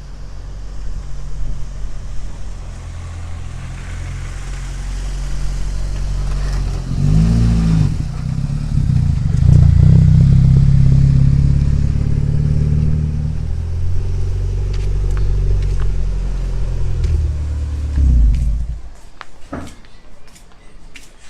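A car engine running, with a rise in revs about seven seconds in, then cutting off near the end.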